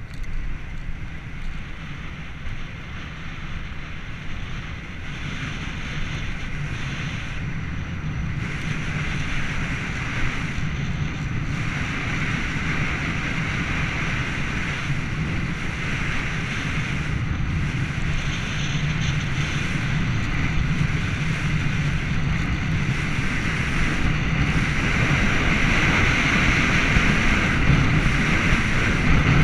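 Rushing wind buffeting a handlebar-mounted action camera's microphone during a fast bicycle descent at around 70 km/h, growing steadily louder as the speed builds.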